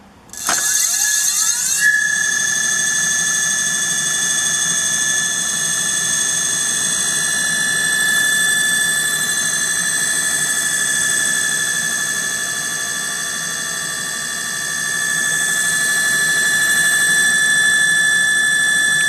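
18-inch 1000 W direct-drive brushless hub motor run up by its controller: a high-pitched electric whine rises in pitch over about a second and a half, then holds steady with the motor spinning at about 40 km/h. The level eases a little past the middle and then comes back.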